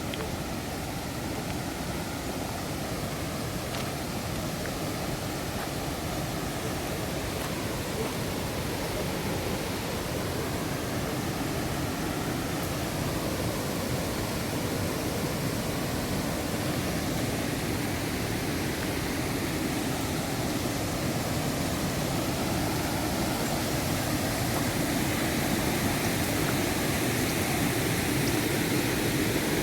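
Rushing water of a river and waterfall: a steady, even noise that grows slightly louder over the stretch.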